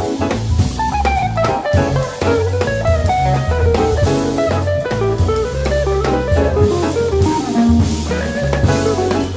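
Jazz combo playing live, with drum kit and cymbals driving under a bass line and an electric guitar carrying a running single-note line.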